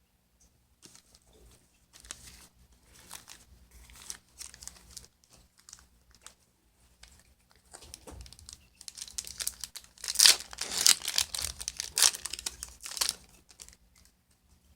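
Foil wrapper of a Yu-Gi-Oh booster pack being handled and torn open. Light scattered crinkles come first, then about nine seconds in a few seconds of loud, dense crinkling and tearing.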